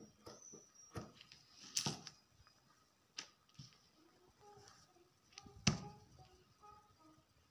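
Scissors snipping through folded cloth, then the cloth rustling as it is unfolded and spread out, with a few sharp clicks and one louder knock about three-quarters of the way in.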